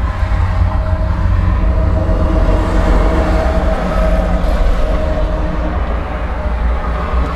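Arbos 4090Q tractor's diesel engine running steadily at a low rumble, heard from inside its cab.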